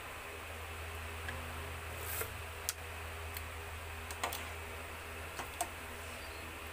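Metal spoon clinking lightly against an aluminium pot, several scattered clinks while soup is stirred and ladled, over a steady low hum.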